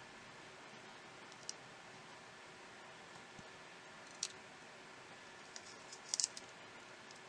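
A few sharp, small clicks of tools and smartphone parts being handled during a repair, over a steady low hiss: a single click, a louder one midway, then a quick cluster of clicks near the end.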